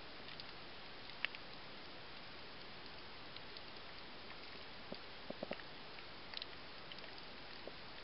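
Underwater ambience on a coral reef: a steady hiss with scattered sharp clicks and crackles, one louder click about a second in and a small cluster of clicks around the middle.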